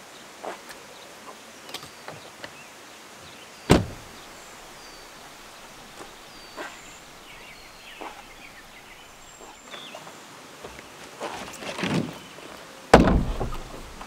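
A car door shuts with a sharp thump about four seconds in, among a few lighter knocks and clunks. Near the end, after some rustling, a full plastic water jug is set down on a wooden picnic table with a loud, heavy thud.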